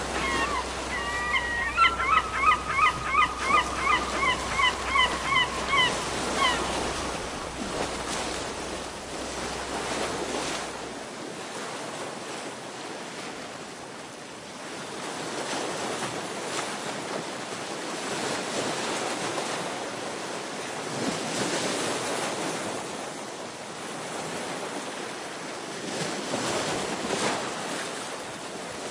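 Sea waves washing against rocks, a steady wash that swells and eases every few seconds. For the first six seconds or so a bird calls over it in a quick run of repeated notes, about three a second.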